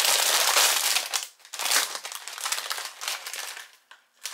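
Plastic potato-chip bag crinkling loudly as it is pulled open and a chip is taken out: one long rustle in the first second, then several shorter crinkles.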